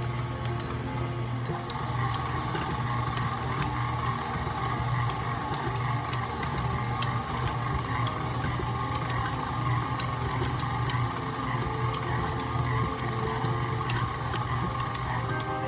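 KitchenAid Artisan stand mixer running steadily as it kneads bread dough in its steel bowl: a steady motor and gear hum with scattered light clicks.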